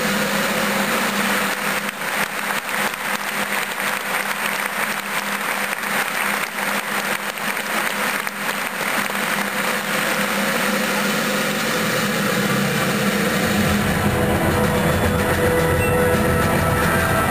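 Horse-drawn chariots racing around a sand arena: hooves galloping and wheels rumbling in a dense, continuous clatter, with music and crowd noise. A heavier low rumble and steadier musical tones come in about thirteen seconds in.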